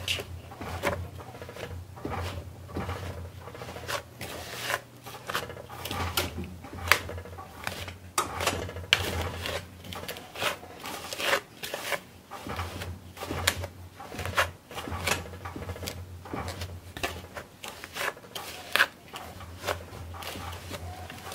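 A wire pastry blender cutting cold butter chunks into dry ingredients in a mixing bowl. It makes irregular scraping and knocking strokes, roughly one or two a second, over a faint low steady hum.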